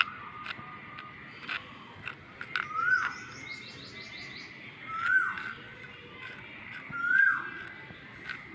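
A bird repeating a short whistled call that rises and then drops, about every two seconds, with a brief run of quick high notes between calls and a few small clicks.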